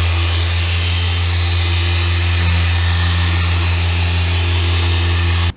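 Harbor Freight dual-action polisher running steadily on a pad against boat gel coat, compounding light oxidation: a loud, even motor hum with a hiss over it. It cuts off abruptly near the end.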